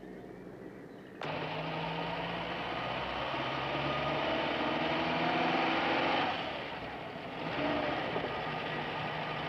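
Motor vehicle engine running, starting abruptly about a second in. Its pitch rises steadily over a few seconds as it picks up speed, then it eases off briefly and picks up again.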